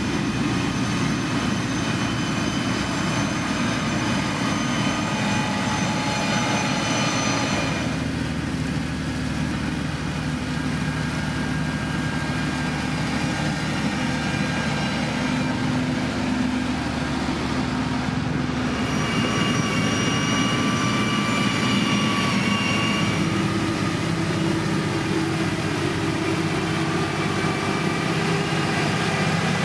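Heavy road-construction machinery, its diesel engine running steadily. The engine's tone changes about eight seconds in and again near twenty seconds.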